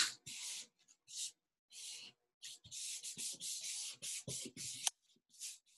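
Hands rubbing a freshly glued paper hand cutout flat onto a paper background: dry brushing strokes of skin on paper, a few separate ones at first, then quick back-and-forth rubbing that stops about five seconds in.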